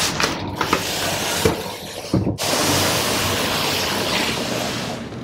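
Cardboard box being handled with a few knocks, then pushed across a tile floor: a steady scraping hiss from about halfway through.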